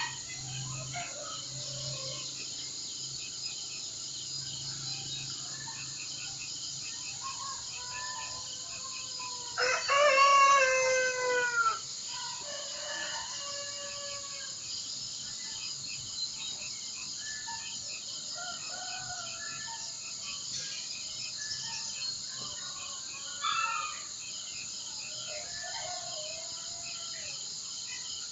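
Rural birdsong soundscape: assorted small birds chirping and calling over a steady, evenly pulsing insect chorus. About ten seconds in, a rooster crows once, the loudest sound, a call of about two seconds that falls in pitch at the end.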